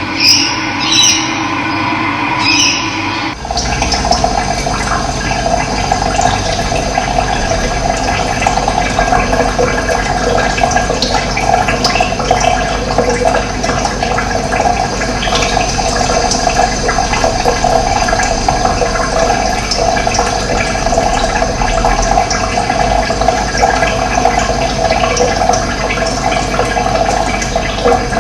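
Running water, a steady rushing stream, cutting in abruptly about three seconds in after a brief stretch of chirps, with occasional faint bird chirps over it.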